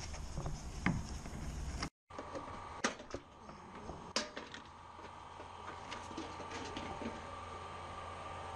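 Hands working plastic car-body parts: small clicks and knocks as a plastic side indicator lamp and the wheel-arch liner are handled and pulled free. Two sharper clicks stand out about three and four seconds in, over a steady hum.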